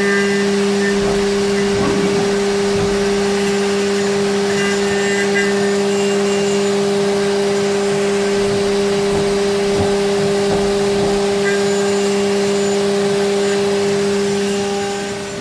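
Haas CNC mill spindle running steadily with an end mill taking a finishing pass through the corners of an aluminium paintball marker body. A constant two-tone whine sits over machining hiss and eases slightly near the end.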